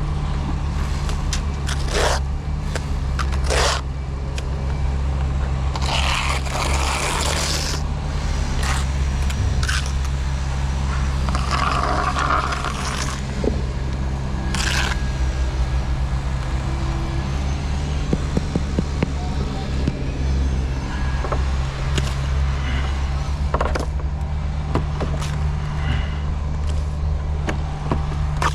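A steady low engine drone, with scattered scrapes and clicks over it.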